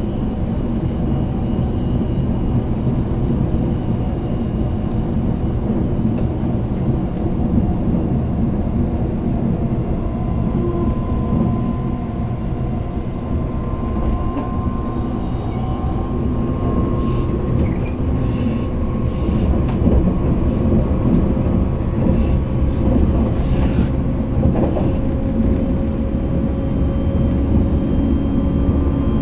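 Interior running sound of a JR East E657 series limited express electric train at speed: a steady rumble of wheels on rail heard inside the passenger car. A faint whine rises slowly in pitch in the second half, and a cluster of brief high hisses comes a little past the middle.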